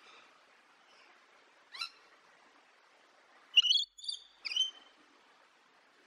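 Rainbow lorikeet calling: one short call about two seconds in, then three loud, shrill calls in quick succession in the latter half.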